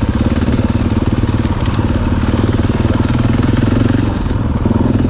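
Dirt bike engine running at low revs, a fast, even throb of firing pulses, as the motorcycle is ridden slowly along a trail.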